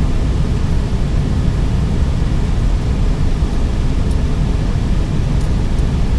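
Steady low rumble and hiss inside an Airbus A320neo's cockpit as the airliner taxis onto the runway to line up, engines at low power.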